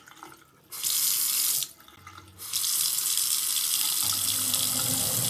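Water from a bathroom basin mixer tap running into the sink, switched on and off at its bare, newly fitted valve cartridge stem. The flow starts under a second in, stops cleanly about a second later, then starts again and keeps running. Each stop is complete, a sign that the new cartridge now shuts the water off fully.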